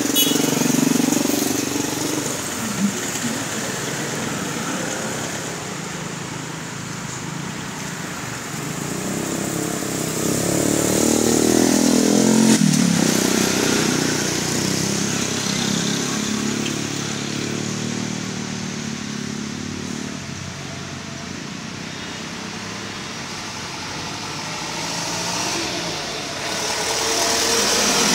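Road traffic passing close by: engines of passing vehicles rise and fall over a steady road noise. The loudest pass comes about halfway through, its pitch dropping as it goes by, and another vehicle swells up near the end.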